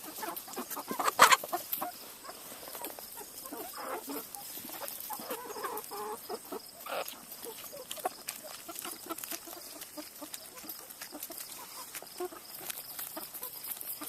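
Chickens clucking softly as they feed, with many small quick pecking taps. There is a louder sharp sound about a second in.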